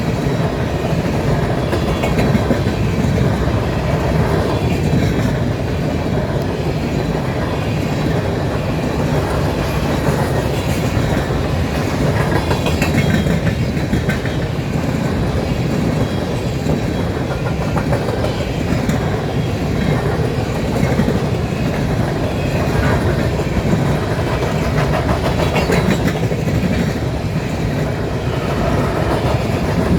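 Empty grain hopper cars of a BNSF unit train rolling past at track speed: a steady rumble with the clickety-clack of the wheels.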